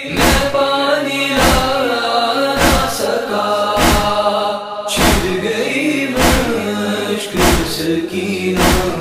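Urdu noha, a Shia mourning lament, chanted in long drawn-out notes over a heavy beat that falls about every second and a quarter.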